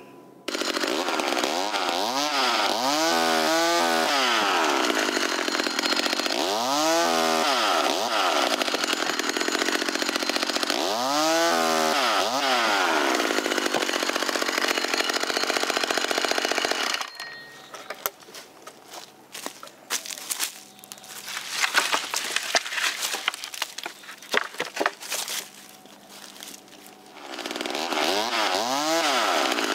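Small two-stroke chainsaw, a McCulloch Mini Mac 33 cc, running and revving up and down several times. About halfway through, the engine sound drops to a quieter stretch with sharp knocks and short louder bursts, then comes back up and revs again near the end.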